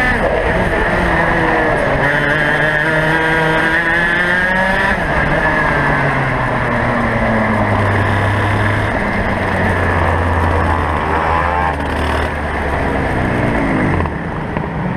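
Racing kart's two-stroke engine heard from onboard: the revs fall at the start, climb under acceleration, drop off and fade to a low steady note, then rise briefly and fall away again as the kart slows near the end.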